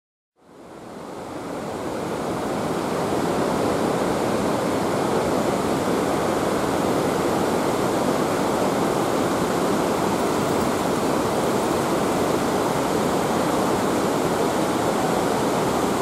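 Naena Falls waterfall: a steady rush of falling water, fading in from silence over the first two seconds or so.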